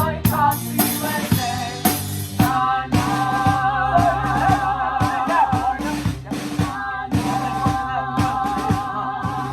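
Live band music led by a drum kit keeping a steady beat, with long held sung notes wavering over it from a few seconds in.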